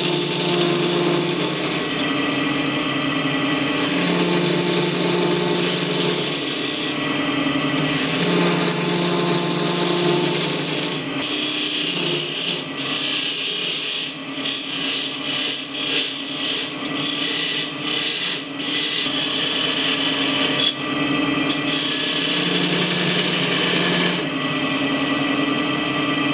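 Wood lathe running with a steady motor hum while a gouge cuts a spinning wooden spindle blank: a hissing scrape that breaks off briefly several times as the tool is lifted. In the middle stretch the cuts come as short, quick repeated strokes.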